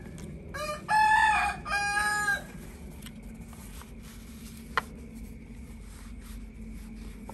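A rooster crowing once, about a second in: a short lead-in note, then two long held notes. A single sharp click follows a few seconds later.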